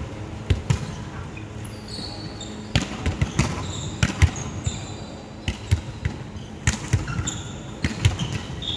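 Indoor volleyball rally: a string of sharp knocks as players strike the ball and land on the wooden court, with short high squeaks from sneakers on the floor.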